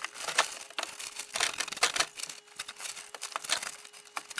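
Digging in dirt beside a stacked-stone pier: irregular scrapes and gritty clicks of the tool working the soil.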